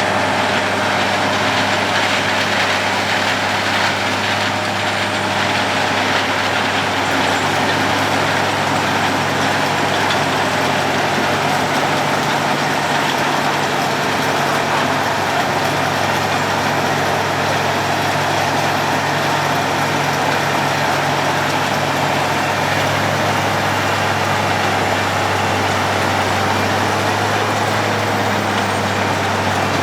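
Road planer (cold milling machine) at work: a heavy diesel engine runs steadily under a broad, even rushing noise, and the engine note shifts slightly partway through.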